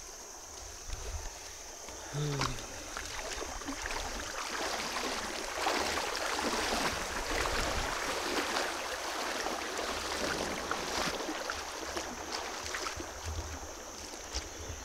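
Water sloshing and splashing in a river, swelling about five seconds in and easing off toward the end, over a steady high drone of insects.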